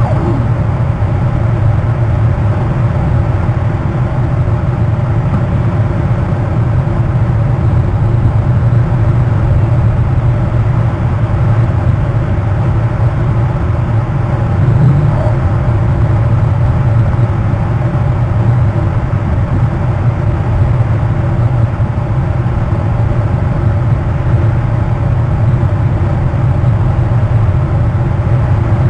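A loud, steady low drone with several steady tones above it, unchanging throughout: the weird noise the camera picked up.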